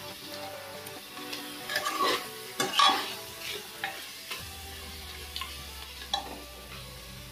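A metal spoon stirring mutton curry in a pressure cooker pot, scraping and clinking against the pot's sides in irregular strokes, loudest around two to three seconds in, with the masala sizzling in oil.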